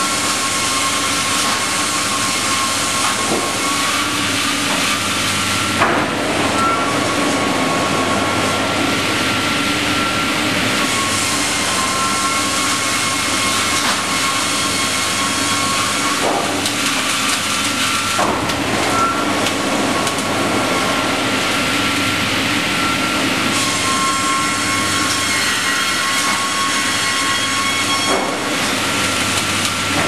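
StrojCAD D9 double-blade circular sawmill running: a steady high whine from the saw head with a continuous hiss, and a few sharp knocks as sawn boards move on the chain conveyor.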